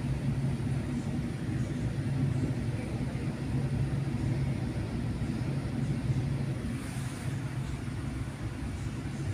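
Inside a moving passenger train carriage: the steady low rumble of the train running along the track.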